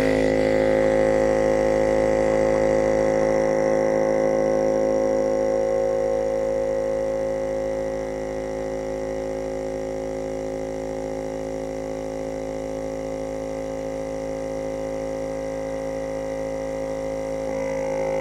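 Small electric air pump switching on abruptly and running with a steady hum as it inflates a balloon. It keeps running well past its programmed three seconds because the PLC's code was rewritten by the malware.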